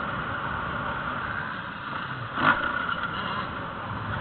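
Motocross bike running on a dirt track, heard from an onboard camera as a steady engine noise mixed with wind on the microphone. One sharp knock about halfway through.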